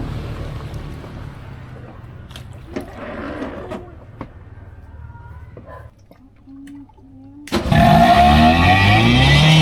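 A low engine hum fades away, with a few clicks, and then, about three-quarters of the way in, a boat's motor starts abruptly and revs up, rising in pitch.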